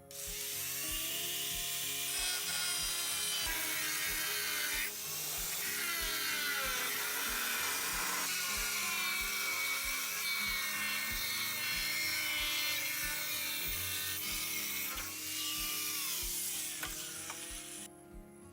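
Two-stroke chainsaw running hard and cutting wood, its engine pitch sagging and rising again as the chain bites. It stops abruptly just before the end. Soft background music with a steady beat plays underneath.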